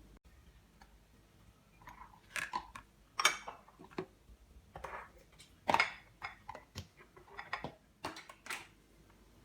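Kitchenware being handled: a scatter of light clicks, taps and knocks of dishes and utensils at an uneven pace, from about two seconds in to near the end.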